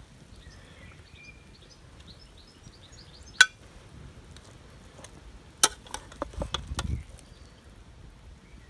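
A metal spatula clinking and scraping against a metal pan and plate as food is lifted out: a sharp clink about three and a half seconds in, another a little before six seconds, then about a second of scraping and clatter. Faint chirping in the background during the first three seconds.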